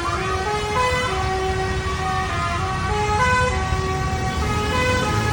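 Bus telolet basuri horn playing a continuous melody of quick stepped notes over a low rumble.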